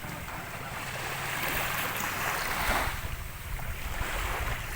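Ocean waves washing onto the shore, swelling and falling back, the wash peaking about two seconds in and again at the end, with wind rumbling on the microphone.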